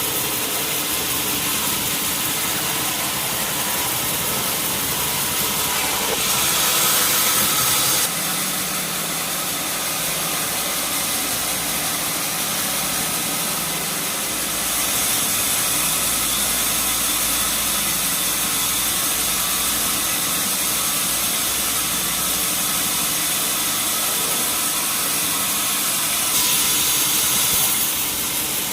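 Sawmill band saw (wheel saw) running steadily with its drive machinery, with two brief louder, hissier stretches, about six seconds in and near the end.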